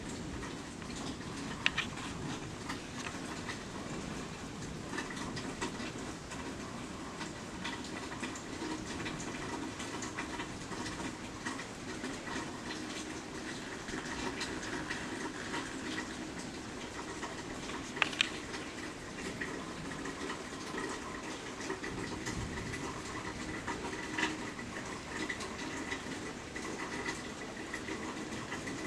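Steady rain falling during a thunderstorm, a constant rushing hiss, with a few sharp taps of drops striking something, near two seconds in and twice at about eighteen seconds.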